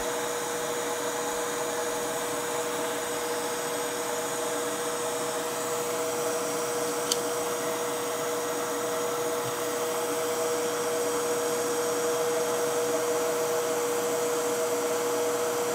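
Steady electric blower whir from soldering-bench equipment, with a constant hum pitch running through it; one light tick about seven seconds in.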